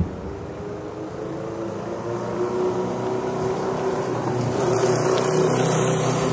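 An engine's steady hum with several held tones, growing louder over the last two seconds as it comes closer, with a sharp click right at the start.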